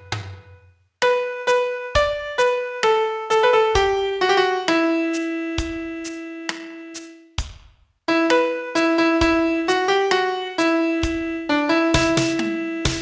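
Piano playing a single-line song melody note by note, each note struck and ringing, with short pauses at phrase ends, about a second in and about eight seconds in.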